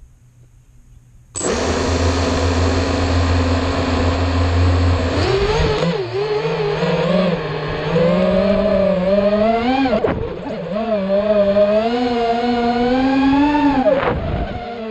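Small multirotor drone's electric motors and propellers whining. They start suddenly about a second and a half in and run at a steady pitch on the ground, then from about five seconds in the pitch climbs and wavers up and down with the throttle, dipping briefly twice, around ten seconds in and near the end.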